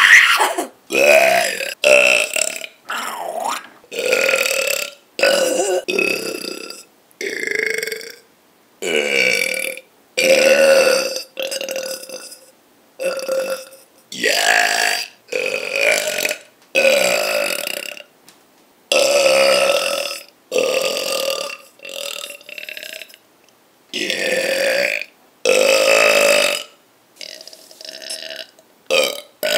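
A person burping over and over: a long string of separate burps, some short and some drawn out, coming about one a second with silent breaks between them.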